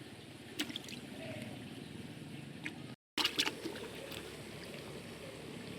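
Water sloshing and trickling, with a few light clicks and small splashes.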